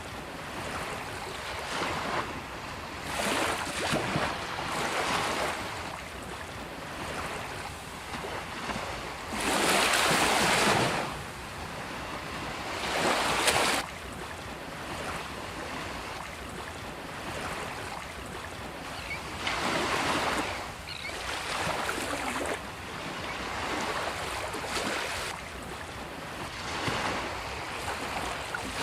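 Ocean waves breaking on a beach: a steady wash of surf with irregular swells, the loudest about ten seconds in and again a few seconds later, with some wind noise on the microphone.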